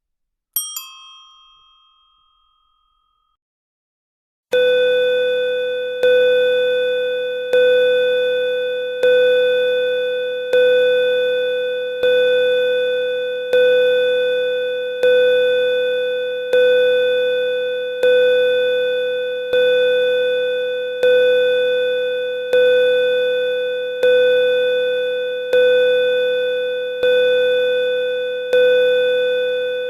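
A single bright bell ding that dies away over about two seconds. After a short silence, a second bell tone starts and is struck again and again, about every second and a half, each ring running into the next like a pulsing signal tone.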